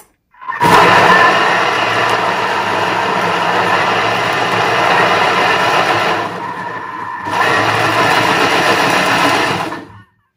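Electric food processor chopping parsley, tomatoes, peppers, onions and garlic into a lahmacun filling. The motor starts about half a second in and runs steadily. It drops off for about a second past the six-second mark, then runs again and stops shortly before the end.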